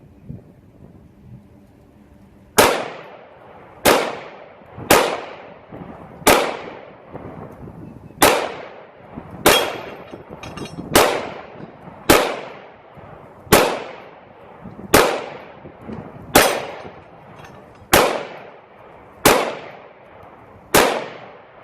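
CZ P10-C 9mm pistol firing 14 shots of 135-grain Federal Hydra-Shok hollow points at a steady, unhurried pace, roughly one shot every second and a half, starting about two and a half seconds in. It runs the whole magazine with no malfunctions.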